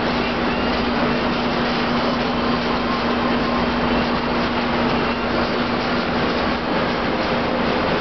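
Vintage Speed Queen tumble dryer running: a steady rush of the turning drum and blower with a constant low hum from the motor.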